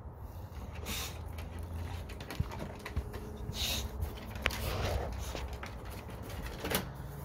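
English bulldog on a wooden deck: a few short noisy huffs of breath, with scattered light clicks as its claws tap the boards while it turns and walks away.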